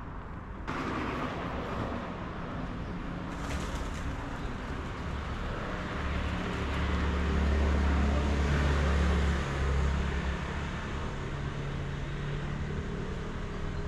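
Street traffic: a motor vehicle's engine rumbles past close by, loudest about seven to ten seconds in, leaving a steady low engine hum near the end.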